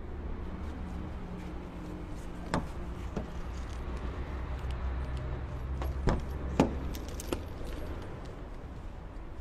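A handful of sharp clicks and knocks from the Nissan Patrol's doors being opened and handled, the loudest pair about six seconds in. Under them runs a steady low hum.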